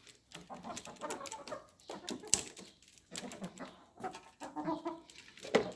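Domestic hens clucking in a string of short calls, with scattered sharp clicks and knocks, the loudest about midway.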